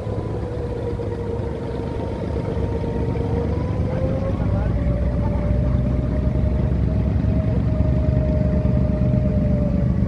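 Inboard diesel engine of a wooden abra water taxi running: a low rumble under a steady whining tone that dips and then climbs a little about four seconds in. It grows slightly louder toward the end.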